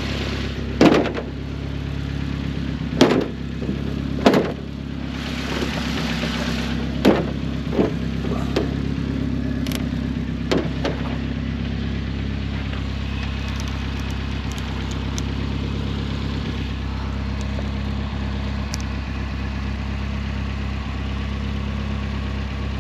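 Nissan 240SX engine idling steadily, with a handful of sharp knocks and clicks in the first half.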